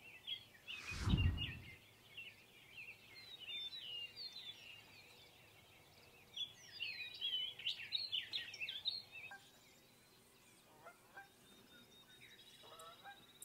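Birds chirping and singing, many short calls overlapping, heaviest in the middle of the stretch. About a second in, a brief, loud, low whoosh rises and fades.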